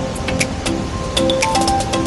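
Background music with a steady quick beat of sharp ticks under held melodic notes.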